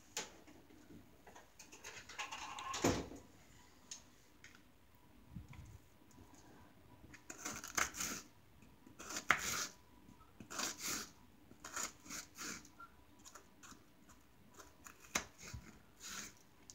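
Kitchen knife cutting an onion on a wooden cutting board: a run of short, irregular cuts, sparse at first and coming more often from about halfway through.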